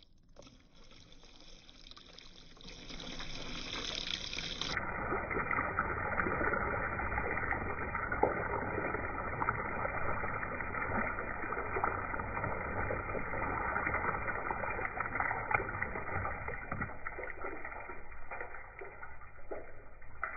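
Water splashing down over a small 1/24-scale RC crawler truck and onto a wooden deck: a steady splashing hiss that builds over the first few seconds, with scattered drips and splats.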